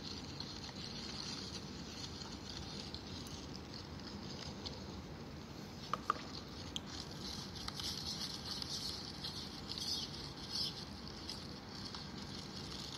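Plastic chip packets rustling and crinkling as macaques handle them, over a steady background hiss. The crinkling gets busier about seven seconds in, and a couple of sharp clicks come just before that.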